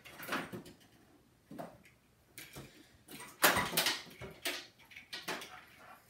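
Cables being pulled out of the back of a desktop computer tower: a series of clicks, scrapes and rattles of plugs and cords, the loudest about three and a half seconds in.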